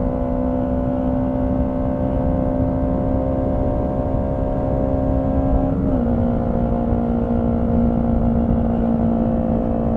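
Honda CB125T parallel-twin engine running at a steady, even pitch under way, with a slight drop in pitch about six seconds in.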